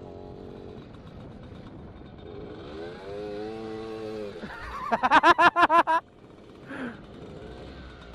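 Small old motorcycle engine running with the revs rising and falling, the second time from about two and a half to four and a half seconds in. About five seconds in comes a loud, rapid stuttering burst of some eight pulses lasting about a second.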